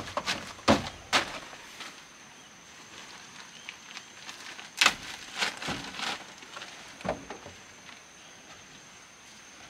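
Scattered knocks and clatters of hands-on building work, about seven irregular strikes with the loudest near the middle, over a steady high-pitched hum.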